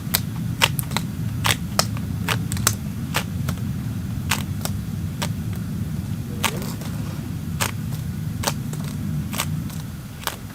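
Wood fire crackling, with sharp irregular pops and snaps about once or twice a second over a steady low rumble.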